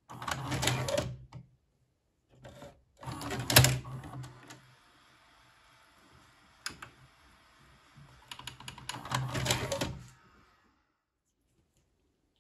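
Cassette-loading mechanism of an opened Sony SLV-X312 VHS video recorder, a motor with gears and levers, running in three bursts of clattering whir over a low motor hum, with a single click between the second and third. It stops about ten seconds in.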